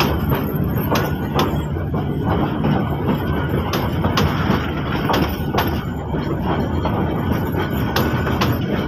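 Passenger train coaches rolling past, a steady rumble with the wheels clacking irregularly on the rails.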